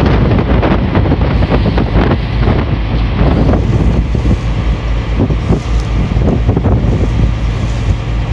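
Strong wind buffeting a phone's microphone aboard a moving boat, a loud, irregular rumbling roar with frequent gusty thumps.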